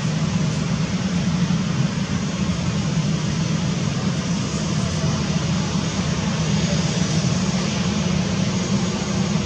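Airbus A320-214's twin CFM56 turbofan engines running steadily as the airliner rolls along the runway, a low hum under an even jet rush.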